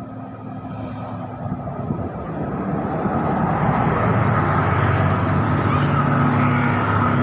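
Heavy truck's engine pulling up a steep climb, growing steadily louder as it approaches.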